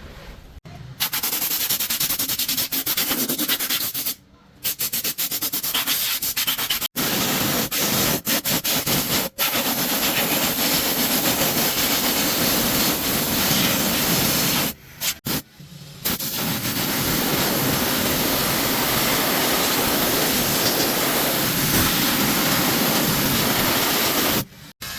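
Loud, rasping, hissing noise of a workshop tool working on metal gearbox parts, with no clear pitch. It cuts out briefly several times and runs on steadily between.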